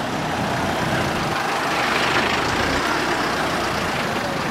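Motor vehicle moving slowly on a road: steady engine and tyre noise with a low hum underneath.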